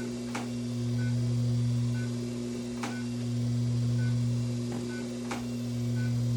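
Class IV therapy laser unit running during treatment: a low hum that swells and fades about every two and a half seconds, with a short high beep about once a second and a faint click every couple of seconds.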